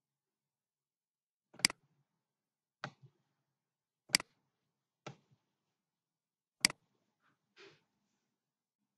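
Computer mouse button clicking: three sharp clicks, each followed about a second later by a softer click.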